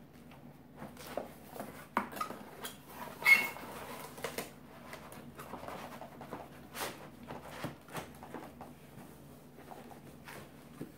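Laptop box and packaging being opened by hand: scattered rustles, taps and scrapes, with one louder, squeaky scrape about three seconds in.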